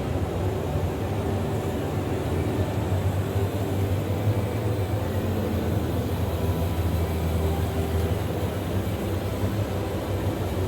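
Radio-controlled model construction machines running steadily, a continuous mechanical hum with a strong low drone.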